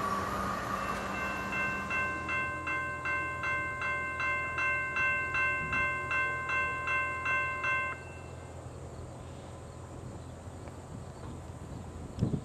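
Railroad grade-crossing bell ringing in rapid, even strikes as the crossing gate lowers, then cutting off suddenly about eight seconds in. A single short thump comes near the end.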